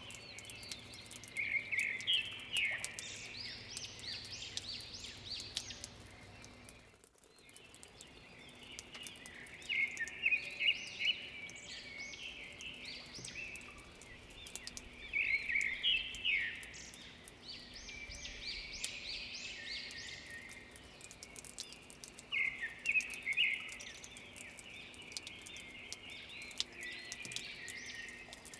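Several birds singing in bursts of rapid chirping phrases, with faint scattered ticks around them. The sound drops out completely for a moment about seven seconds in, then the singing resumes.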